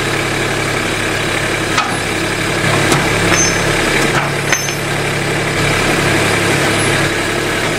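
An engine idling steadily, with a few short clicks and knocks over it.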